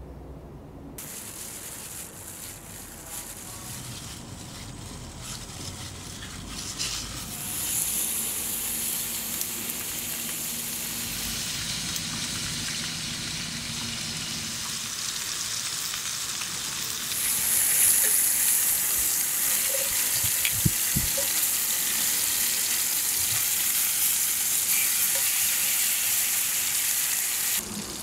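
Pork belly sizzling and frying in a hot metal pan, a dense steady hiss that grows louder about eight seconds in and again a little past the middle.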